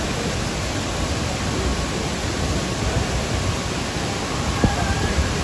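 Steady rushing of a tall artificial waterfall pouring over rockwork, with a single short knock about four and a half seconds in.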